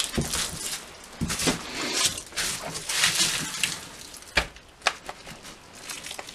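Footsteps scuffing and crunching across a debris-strewn wooden floor, in uneven steps about a second apart. A sharp knock comes about four seconds in.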